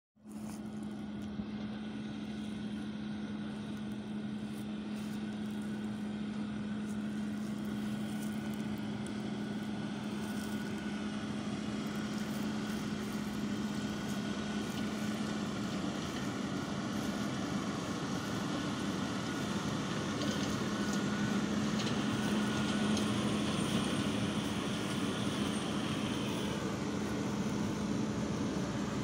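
JCB Fastrac 4190 tractor running while pulling a Fendt 4160V round baler at work: a steady engine drone with a constant low hum, growing gradually louder as the outfit comes closer.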